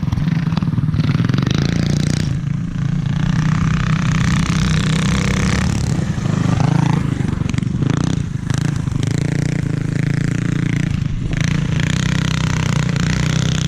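Motovox mini bike's Predator single-cylinder four-stroke engine running under load as the bike is ridden, with a steady engine note and a few brief dips as the throttle eases.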